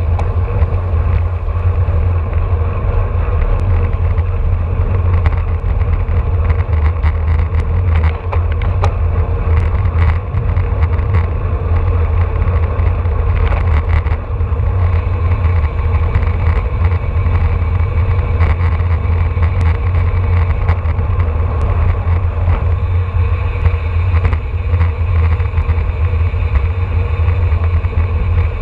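Wind rushing over an action camera's microphone on a road bike moving at about 25 to 30 mph, a steady heavy low rumble mixed with tyre noise on the road, with scattered short clicks.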